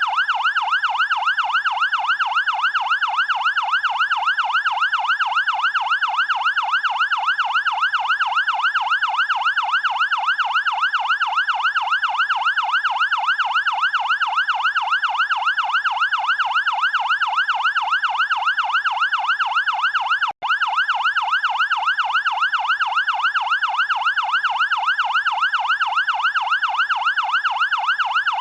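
Fire-engine siren in a fast yelp, its pitch sweeping up and down about three times a second, steady throughout. It cuts out for a split second about twenty seconds in.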